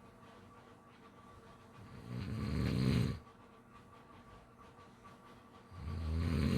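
Snoring in slow, steady breaths: one low snore about two seconds in, growing louder for about a second before it stops, and the next snore starting near the end, with quiet breathing gaps between.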